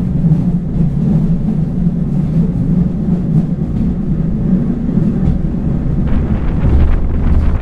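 Passenger train running, heard from inside the carriage: a steady low drone with rumble from the running gear, getting heavier and hissier about six seconds in.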